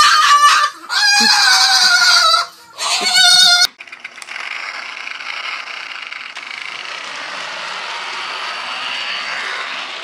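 White cockatoo giving three loud, wavering screeching calls, one after another. About four seconds in they cut off suddenly and give way to a steady, quieter hiss.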